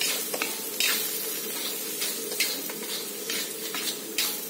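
Long metal spatula stirring and scraping in a stainless steel wok, a series of scraping strokes over the steady sizzle of the cooking food.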